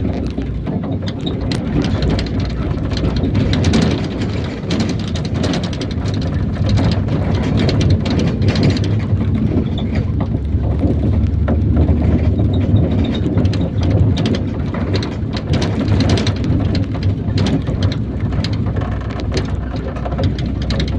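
Interior of an IVECO Daily minibus under way: a steady low engine-and-road rumble with constant rattling and clicking from the body and fittings.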